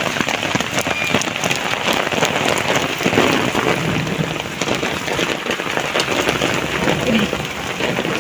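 Heavy rain falling steadily on a surface: a dense, even hiss dotted with many close drops ticking.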